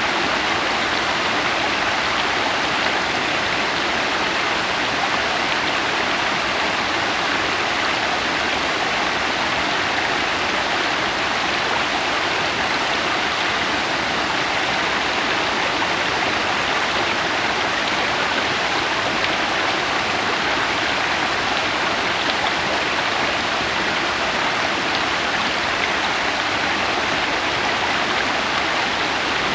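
Waterfall: water falling and splashing onto rocks in a steady, loud rush of white noise.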